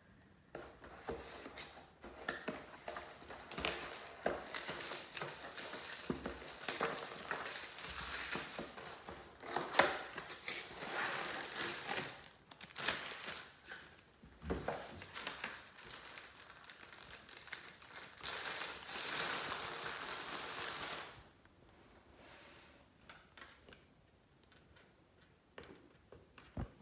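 Plastic bag crinkling and rustling as a bag of clip-on igniters is handled and pulled out of its cardboard box, with small clicks and knocks throughout. After about 21 seconds it drops to quiet handling of the igniter wires.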